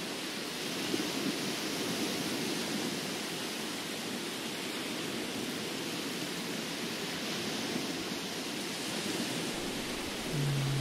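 Steady, even rushing noise with no distinct events, like a hiss bed. A brief low hum starts near the end.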